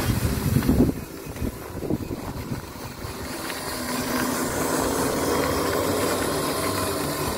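Homemade ride-on toy truck running as it tows a trailer over gravel, its wheels crunching on the stones. The motor's steady hum becomes clear about four seconds in.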